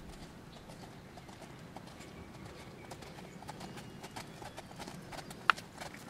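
Hoofbeats of a Trakehner gelding under saddle on sandy arena footing, cantering and then trotting, in a steady rhythm of soft strikes. There is one sharp click near the end.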